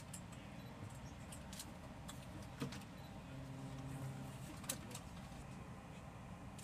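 Faint, steady low rumble of a carrier flight deck with jets on it, under a low hum, with a few light ticks and two small clicks.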